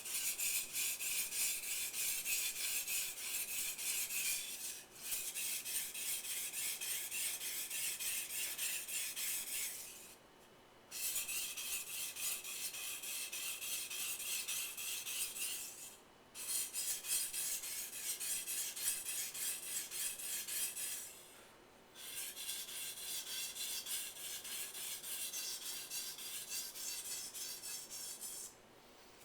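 Steel kitchen knife blade scraping back and forth on a wet 1000-grit splash-and-go whetstone in quick, even strokes, sharpening the knife's second side. The strokes come in five runs broken by brief pauses and stop just before the end.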